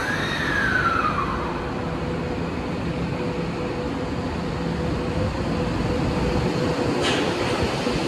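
Tokyo Metro 18000 series subway train pulling away from the platform, its Mitsubishi full-SiC VVVF inverter and permanent-magnet synchronous motors whining as it starts. A tone falls in pitch over the first second and a half, over a steady hum and the rumble of the cars getting under way, with a short hiss about seven seconds in.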